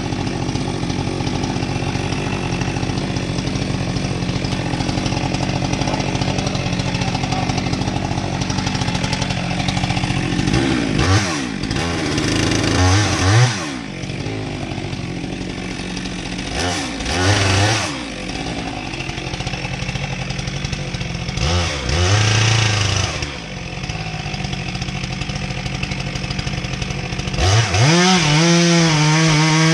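Stihl chainsaw idling, then revved up and let back down three times in short blips. Near the end it goes to full throttle and is held there at high revs.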